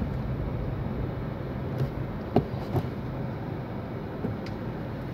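Steady low rumble of a Hyundai Verna heard from inside its cabin, with a few sharp clicks, the loudest about two and a half seconds in.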